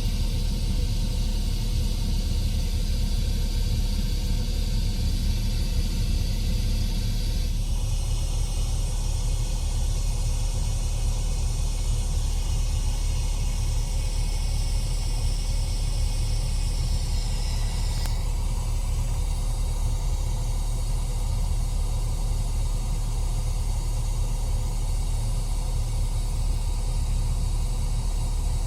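White noise played through car mid-range speakers (a Sony XS-163ES set against a factory stock JBL), a steady hiss whose tone changes abruptly about seven seconds in and again, with a click, about eighteen seconds in.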